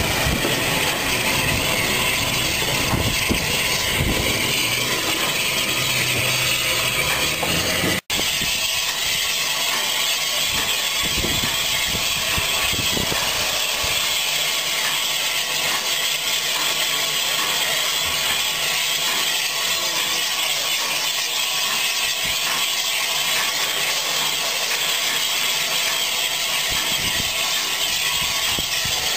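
Unrebuilt Bulleid Battle of Britain class 4-6-2 steam locomotive: a heavier low rumble for the first eight seconds as it moves slowly tender-first, then, after an abrupt cut, a steady hiss of steam as it stands at the coaling stage.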